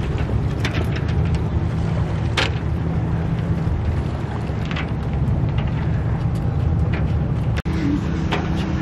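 A steady low rumble with a few short splashes of a kayak paddle dipping into the water. The sound drops out for an instant near the end.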